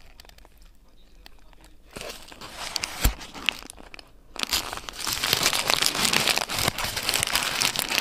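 Close-up eating sounds of a shawarma: quiet chewing at first, a sharp click about three seconds in, then the paper wrapper crinkling steadily from about four seconds in as it is handled.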